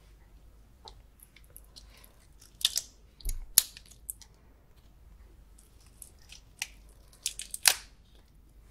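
Close-miked mouth sounds of someone eating garlic-butter prawns: soft chewing broken by short clusters of sharp, crisp clicks, in two louder bursts about a third of the way in and near the end.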